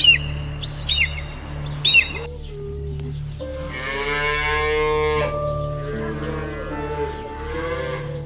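Cattle mooing: one long, loud moo a little past three seconds in, then a softer, lower one near the end. Before it, a bird calls three times, short falling cries about a second apart, and a steady synth drone plays underneath.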